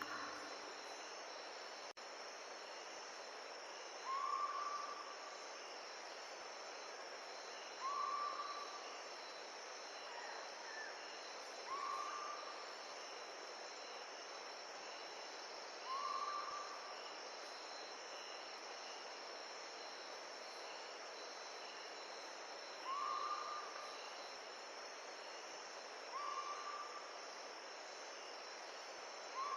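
Steady trilling of crickets or similar insects over a constant hiss of wind, with a bird giving one short call about every four seconds, seven times in all.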